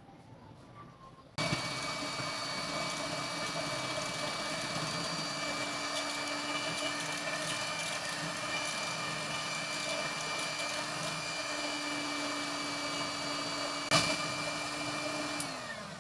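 Electric hand mixer switched on about a second and a half in, running steadily with a held whine as its beaters whisk eggs and milk in a glass bowl, with one sharp knock near the end; then it is switched off and its pitch falls as it winds down.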